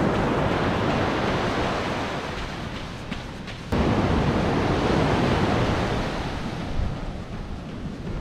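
Ocean surf washing up the beach, with wind rushing over the microphone. The noise eases off for a moment, then jumps back up abruptly almost four seconds in.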